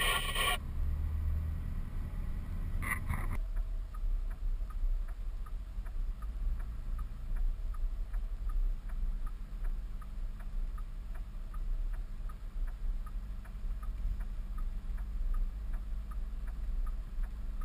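Steady low rumble of a vehicle driving on a highway, heard from inside the cab. Two short louder bursts come in the first three seconds, and from a few seconds in a light, even ticking runs at about three ticks a second.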